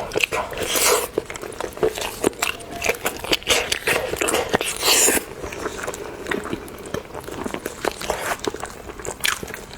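A person biting and chewing seafood, with many irregular wet clicks and crunches. Two longer, louder noisy bursts come about a second in and about five seconds in.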